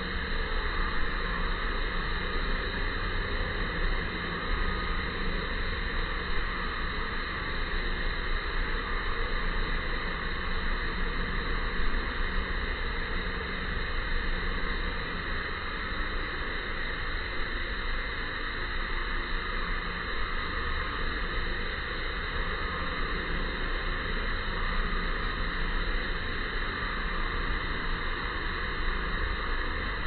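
Steady, even background hiss with no distinct calls or events.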